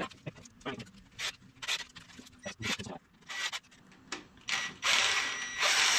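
Hand work on engine parts: a series of short scraping, rubbing strokes, then two longer, louder scrapes near the end.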